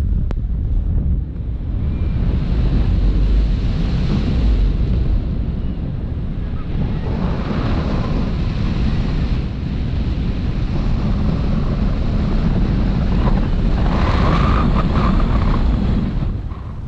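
Wind buffeting the camera's microphone during paragliding flight: loud, steady rushing air with most of the noise low down, swelling and easing a little.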